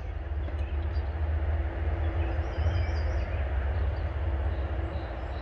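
A steady low rumble with a faint steady hum over it through the middle.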